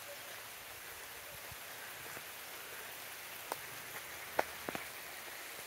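Steady rain falling, with a few louder single drops near the end.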